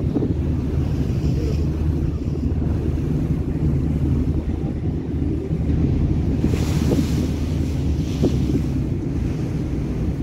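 Steady low rumble of a passenger ferry under way, with wind buffeting the microphone and water rushing along the hull. A gust of hiss swells about six and a half seconds in.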